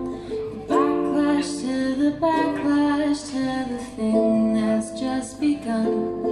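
A woman singing to a strummed ukulele. Her voice comes in about a second in and drops out near the end, leaving the strumming.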